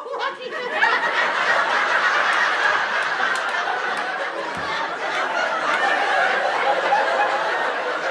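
Theatre audience laughing, the laughter swelling about a second in and carrying on steadily.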